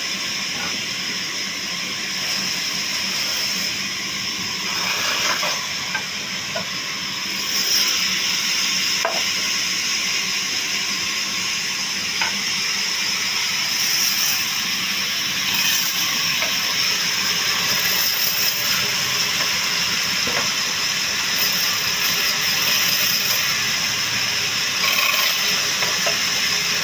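Woodworking machinery running steadily in a workshop: a continuous loud hiss with a steady high whine and a few faint clicks.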